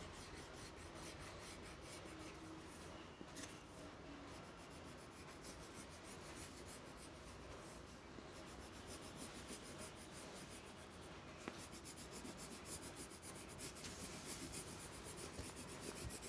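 Faint scratching of a yellow colour pencil stroked over paper, as the edges of a drawing are bordered and filled in. The strokes come quicker and a little louder in the last few seconds.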